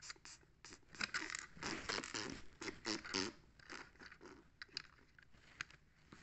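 Close handling noise: a hand rubbing and brushing right by the phone's microphone, with a string of sharp clicks and scrapes from plastic Lego bricks being handled and pressed together.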